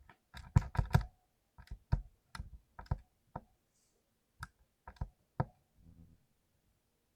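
Mechanical keyboard with clicky blue switches being typed on: a quick flurry of key clicks in the first second, then single key presses at irregular intervals.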